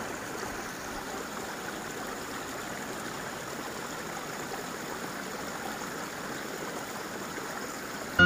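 Steady rush of flowing stream water, an even noise without distinct splashes.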